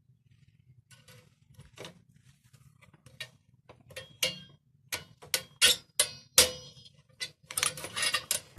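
Metal hand tool clicking and clinking against a moped engine as a small spring is worked off: sparse sharp clicks at first, coming quicker after a few seconds and running into a clattering metallic scrape near the end.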